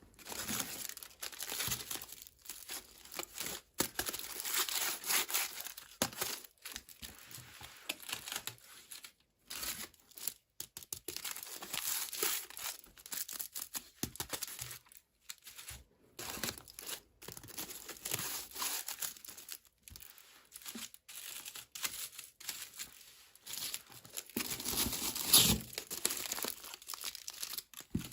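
Packaging being crinkled and torn open by hand: irregular rustling and crackling with short pauses between handlings.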